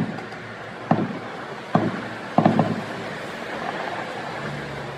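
Fireworks shells bursting overhead: a string of sharp booms about a second apart, the last two in quick succession, each trailing off briefly.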